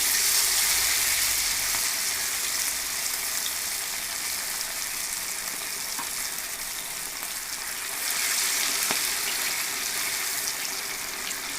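Pieces of marinated country chicken deep-frying in hot oil: a steady, loud sizzle that swells again about eight seconds in, with a few faint ticks.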